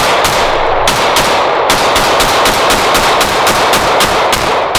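Rapid semi-automatic pistol fire: a fast, even string of shots, about four a second, their echoes running together. The string stops near the end.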